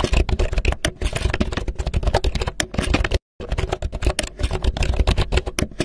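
Keyboard typing sound effect: a fast, dense run of key clicks, with a brief silent break about three seconds in.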